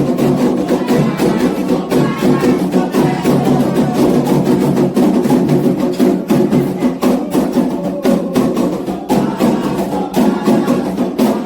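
Candomblé xiré music: a dense, steady rhythm of hand drums and a struck bell, with a group singing over it.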